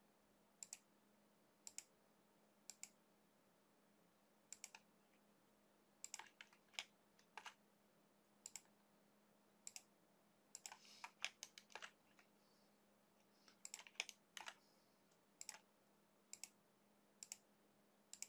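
Computer mouse clicking, short clicks about once a second with a few quicker runs, each click setting the next point of a line being drawn; a faint steady low hum underneath.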